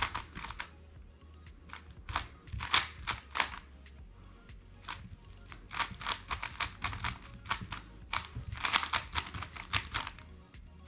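A 3x3 speed cube being turned fast in a timed solve: spurts of rapid plastic clicking, each under a second to about two seconds long, with short pauses between.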